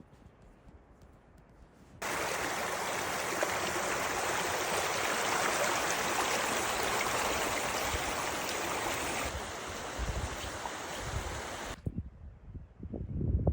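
Rushing water, a loud steady rush that cuts in abruptly about two seconds in and stops abruptly near the end.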